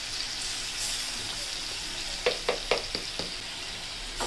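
Onion, ginger and garlic paste with whole spices sizzling steadily in hot oil in a pan. About two seconds in, a spoon strikes the pan five times in quick succession as the masala is stirred.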